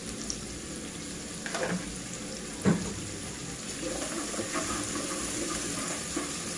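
Chopped onions frying gently in a little oil in an aluminium pot, with a wooden spoon stirring them. A sharp knock about two and a half seconds in stands out over the steady sizzle.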